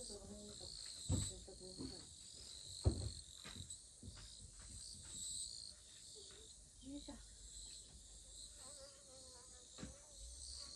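A steady, high-pitched chorus of chirping insects, with a few scattered knocks and thumps, the loudest about one second and three seconds in.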